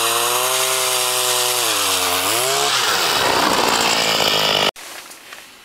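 A small engine running fast. Its pitch dips about two seconds in, then the sound turns rough and noisy, and it cuts off abruptly near the end.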